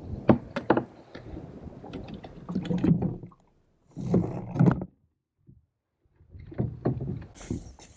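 Irregular knocks, clatter and rustling of fishing gear being handled aboard a kayak: the rod and line knocking against the hull. It comes in three bursts with short gaps between them.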